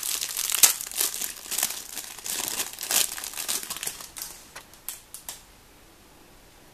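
Packaging crinkling and rustling as the converter kit's parts are handled, dense for about four seconds, then a few scattered crackles before it stops.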